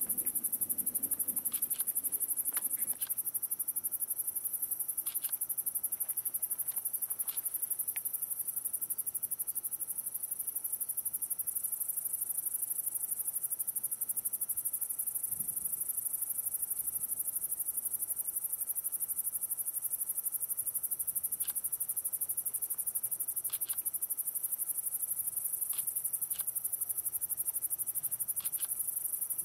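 Steady, high-pitched chorus of night-singing insects, an even fast trill, with a few faint short chirps now and then.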